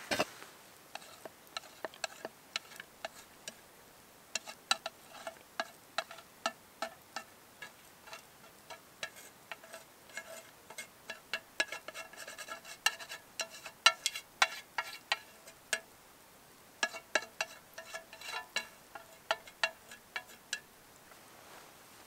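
A utensil tapping and scraping against a metal frying pan as a vegetable omelet is emptied onto a wooden plate: dozens of sharp clicks, each with a short metallic ring. They come thickest in the middle, stop briefly, then resume.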